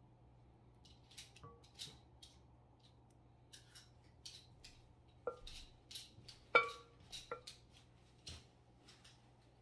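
A spoon scraping and tapping against a bowl while pudding, cake and whipped cream are spooned in and spread, giving a string of light scrapes and clicks. A few taps ring briefly, and the loudest is a ringing clink about six and a half seconds in.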